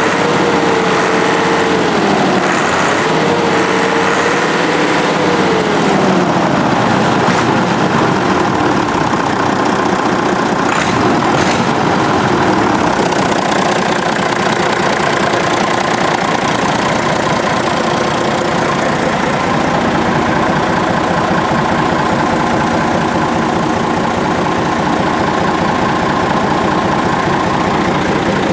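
Deutz D 10006 A tractor's air-cooled four-cylinder diesel engine running. Its speed rises and falls a few times in the first six seconds or so, then it settles into a steady run.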